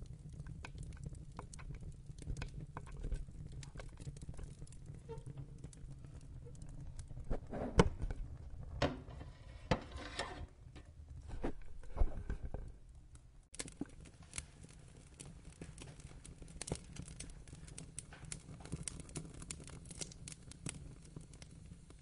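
Wood fire burning in a firebox, crackling and snapping over a steady low rumble of flame. The crackling gets busier in the middle, with two loud pops about 8 and 12 seconds in.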